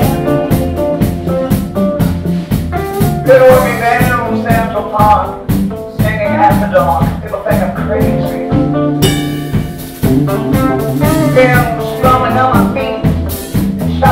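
Live rock band playing a song: acoustic and electric guitars, bass guitar and drum kit, with a man singing through a microphone in two stretches.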